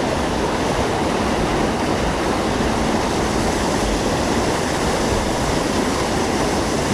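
Loud, steady rush of a fast-moving stream current pouring over a small fall.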